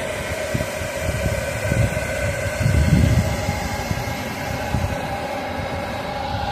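Handheld heat gun running steadily, a blower hum with a held whine, as it warms window tint film on a car's door glass.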